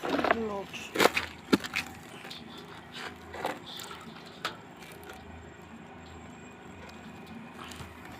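A few sharp knocks and clicks in the first four or five seconds, the loudest about one and one and a half seconds in, over a low steady hum.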